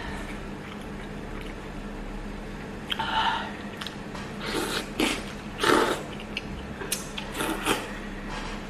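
Noodles slurped from a bowl of spicy mala tang broth: several short, loud slurps, the loudest about five to six seconds in, with quieter wet chewing between them.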